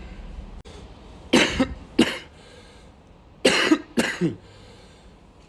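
A man's coughing fit: two coughs close together a little over a second in, then two more about two seconds later.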